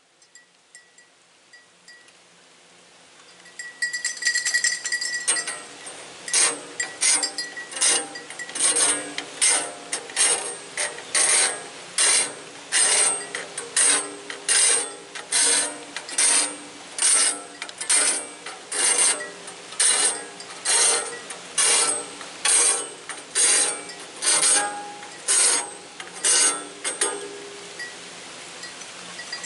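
A mechanism cycling steadily, with a sharp ratcheting clack a little more than once a second; it starts about three and a half seconds in.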